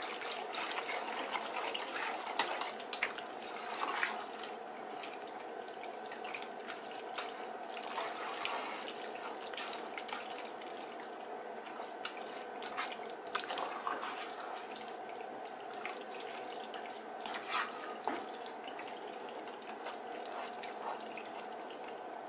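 A slotted spoon stirring thick, cheesy shell pasta in a pot, with scattered scrapes, clicks and soft squelches, over a steady rushing hiss and a faint hum.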